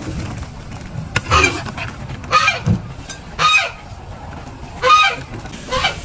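A domestic fowl, goose-like, calling five times in short calls about a second apart, over steady low background noise.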